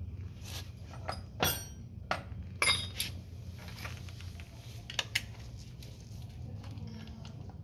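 Metal hand tools clinking: a few sharp metallic clinks with a short ring, the loudest about a second and a half and nearly three seconds in and two more around five seconds, over a low steady hum.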